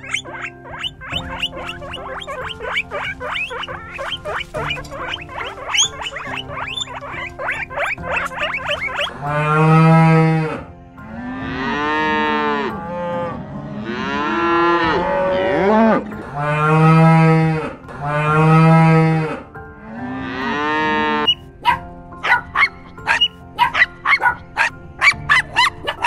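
Cattle mooing: about six long, loud moos in a row through the middle of the stretch. Before them come many rapid short squeaks, a guinea pig's, and after them a run of short sharp sounds, over steady background music.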